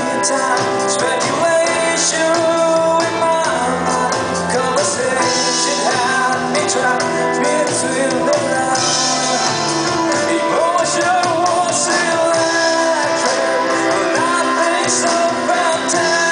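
Live band playing a pop-rock song, a singer's voice over guitars, drum kit with cymbals, and percussion.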